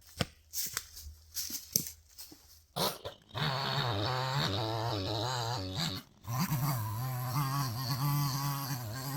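Broken, hung-up tree beginning to give way: a few sharp cracks and knocks of wood, then, about three seconds in, a long wavering creak and groan of the fibres straining, breaking off briefly and resuming.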